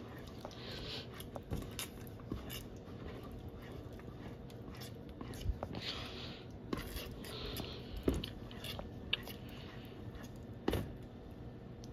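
Spatula stirring thick melting cheese sauce in a stainless steel pot: a run of soft wet scrapes and small clicks, with a few louder knocks of the spatula against the pot, the sharpest about eight seconds in.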